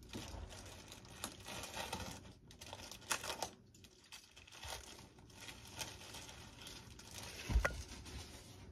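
Plastic bag crinkling and rustling as parts are handled in their packaging, with scattered clicks and one dull thump, the loudest moment, about seven and a half seconds in.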